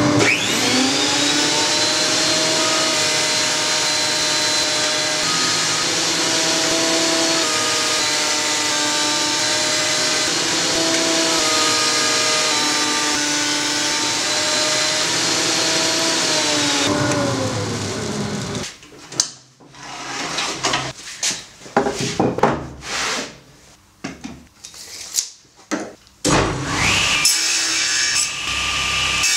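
Benchtop thickness planer running with dust extraction as oak strips pass through, a steady motor whine over the cutting noise; it winds down about seventeen seconds in. A stretch of short, uneven knocks and scrapes follows, then a table saw starts up near the end.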